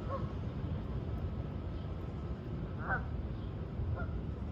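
Canada geese and mallard ducks calling in the distance: a few short honks and quacks, the loudest about three seconds in, over a steady low rumble.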